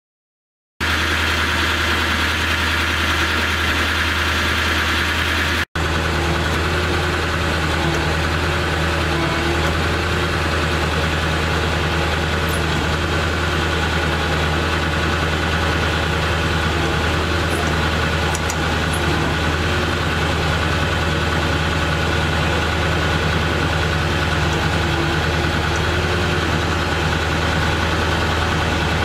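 The 7.3-litre V8 diesel engine of a 2000 Ford F350 Super Duty idling steadily. It starts abruptly about a second in and cuts out for an instant near six seconds.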